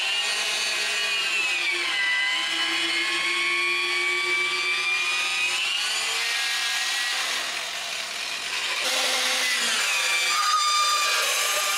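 Corded electric drill boring deep into thick stacked wooden boards, its whine sagging in pitch and picking back up as the bit works through the wood.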